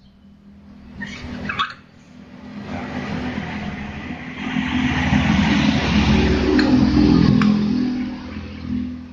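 A motor vehicle engine running close by, its noise swelling over several seconds and easing near the end, over a steady low hum. About a second in there are a few light clinks, likely from the scooter's CVT pulley parts being handled.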